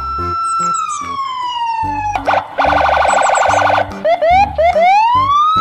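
Police car electronic siren: a long wail falling slowly in pitch, then a fast warbling yelp, a few short rising whoops, and a wail climbing again near the end.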